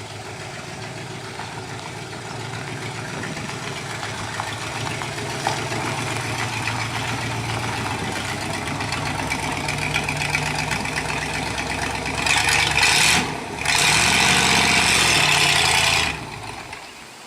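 1958 Chevrolet Apache pickup's engine running, growing louder over several seconds, then revving hard and loud for about four seconds before cutting off suddenly.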